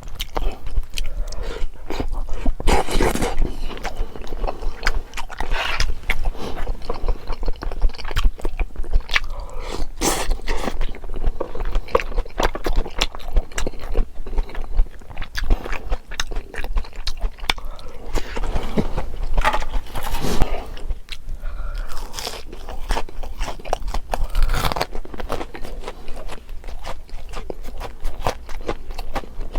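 A person eating close to the microphone: biting and chewing with many short crunches, as from crispy fried food, through the whole stretch.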